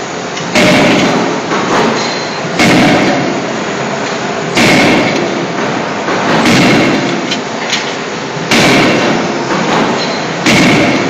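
CNC hydraulic forging hammer striking glowing hot steel scissor blanks on the die, one heavy blow about every two seconds, each with a short metallic ring, over a steady noise between blows.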